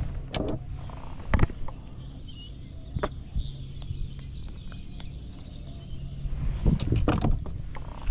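Steady low hum of a small motor, with sharp knocks and clatters about a second and a half in, at about three seconds, and a louder run of them near the end.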